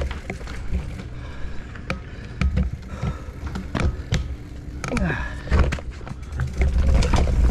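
Mountain bike rolling over a rocky trail: tyres on rock and the bike's chain and frame rattling in irregular quick knocks. Wind rumbles on the microphone, heavier near the end.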